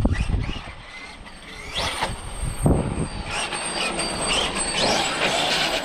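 Losi 5ive TE 3.0 1/5-scale electric RC truck driven hard: its brushless motor and drivetrain whine rises sharply as it accelerates, with a thump about two-thirds of a second after, then steady tyre and drivetrain noise.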